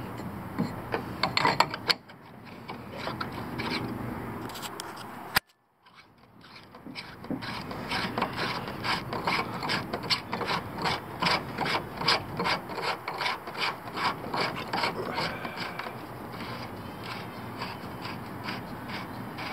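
Hand ratchet clicking in quick, even strokes, about four a second, while fittings on an oil catch can setup are tightened. It cuts to silence briefly about five seconds in.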